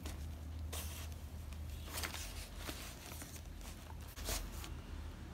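Kraft-paper treat bags being handled and set into a wooden basket: a few short paper rustles over a steady low hum.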